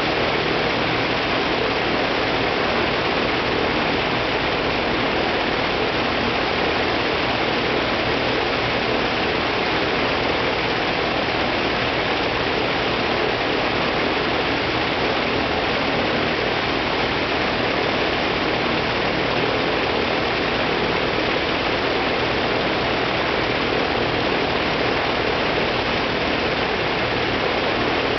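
Il-14T's left ASh-82T engine, a 14-cylinder twin-row air-cooled radial, running steadily on the ground with its propeller turning. The noise is loud and even, with no change in engine speed.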